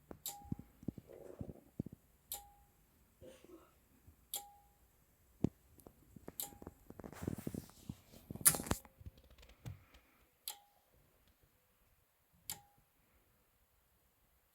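Anker Solix C1000 power station's internal AC charging relay clicking about every two seconds, each click followed by a brief hum. The unit keeps starting to charge and stopping at once, which the owner takes for the state of charge sitting just short of 100% in UPS mode. Some irregular rustling and knocking comes in the middle.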